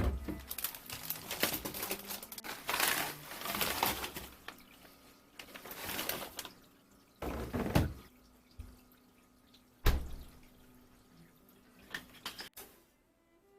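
Water running and splashing at a kitchen sink in several separate bursts, with a knock of something set down about ten seconds in.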